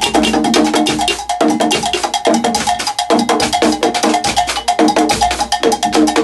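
Live band percussion playing a fast, busy groove: hand drums and rapid sharp strikes, with cymbal, over a low brass horn playing a moving bass line.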